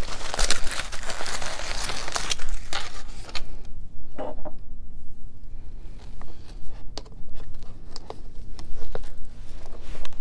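Aluminium foil being unwrapped and crinkled by hand, dense and loudest for the first three seconds or so, followed by scattered light clicks and taps as a plastic food container is handled.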